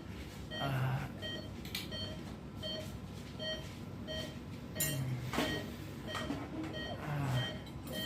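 Operating-theatre patient monitor beeping steadily, about one short beep every 0.8 seconds, the pulse tone following the patient's heartbeat. A few brief rustles and murmurs come up between the beeps.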